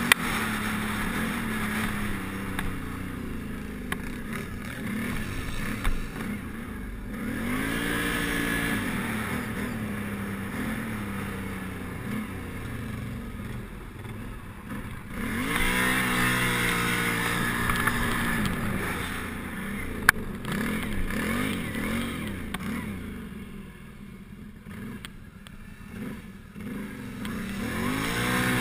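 Can-Am Renegade 800 ATV's V-twin engine running under way, revving up and down with the throttle. Revs climb hard about halfway through, ease off for a few seconds in the last third, and climb again near the end. There are two sharp clicks, one near the start and one about two-thirds through.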